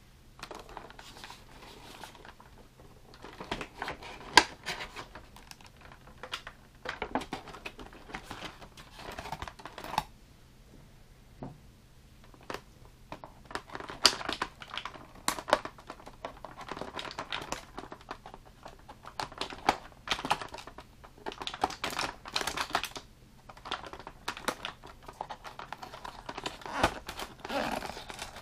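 Cardboard and plastic action-figure packaging being handled: a run of irregular clicks, crinkles and scrapes as staples are pried out of a cardboard insert with small pliers and the taped flaps are pulled open.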